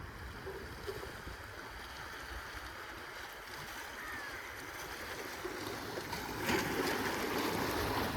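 Sea water washing and lapping against a jetty, mixed with wind buffeting the microphone; the rushing grows louder near the end.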